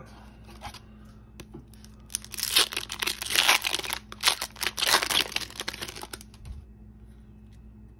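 Foil wrapper of a 2021-22 Upper Deck MVP hockey card pack being torn open and crinkled by hand: a run of sharp crackles from about two seconds in to about six seconds in.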